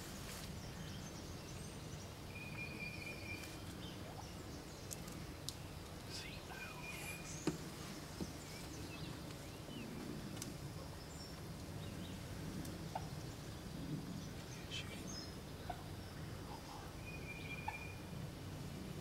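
Wild turkeys gobbling off and on, faint, over steady outdoor background noise, with scattered small bird chirps and a few short high steady whistles.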